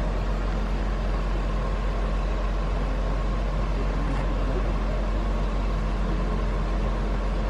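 Large mobile crane's diesel engine running steadily: a constant low drone with a faint steady whine above it.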